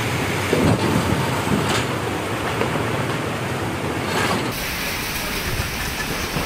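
Heavy rain pouring down in a strong windstorm, a dense steady rush with wind buffeting the microphone and a few knocks of things being blown about. The sound changes about four and a half seconds in as a different rain-swept spot takes over.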